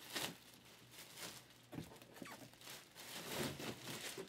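Irregular rustling, crinkling and light knocks, like things being handled and moved about, with no clear rhythm.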